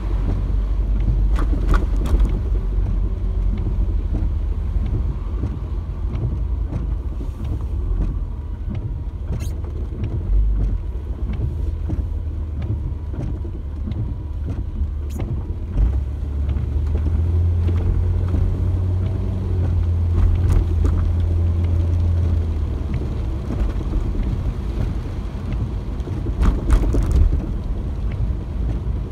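Road noise heard from inside a moving car: a steady low rumble of engine and tyres, swelling for a few seconds in the middle, with a few faint clicks.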